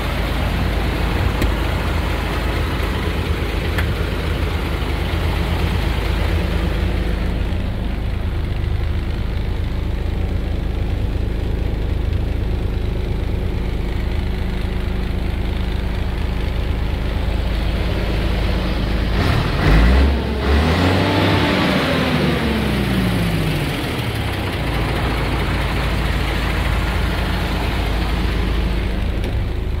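DAF 85.400 ATI truck's six-cylinder turbo diesel idling steadily, with one rev about two-thirds of the way through: the engine speed rises quickly, then falls back to idle over a few seconds.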